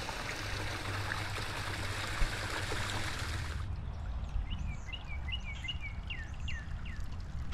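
Small stream trickling and splashing out of a stone-arch culvert, cutting off suddenly about three and a half seconds in. Then a bird gives a quick series of short, falling chirps.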